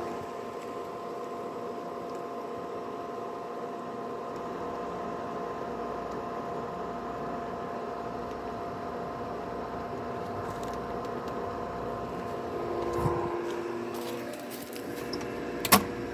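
Pool filter pump motor running with a steady hum. There is a small knock about thirteen seconds in and a sharp click near the end.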